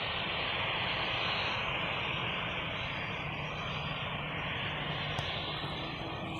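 Jet engines of a narrow-body twin-engine airliner on the runway, a steady rushing noise that swells slightly about a second in.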